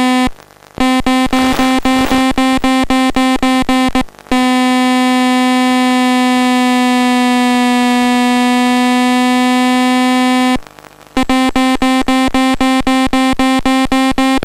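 Electronic tone from the FPV telemetry system: one steady pitch beeping about four to five times a second, held as a continuous tone from about four seconds in, then breaking back into quick beeps about ten and a half seconds in.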